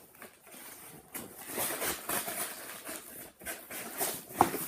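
Plastic packaging crinkling and rustling as it is handled and pulled open, with one sharp snap near the end.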